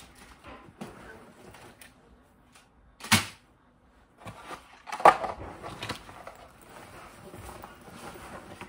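Rustling and handling of school supplies taken from a backpack, with a sharp knock about three seconds in and a louder knock about five seconds in as things are set down.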